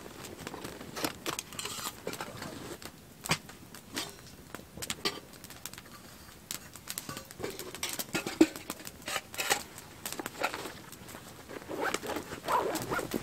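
Footsteps in snow: irregular crunches and scuffs, scattered unevenly rather than in a steady walking rhythm.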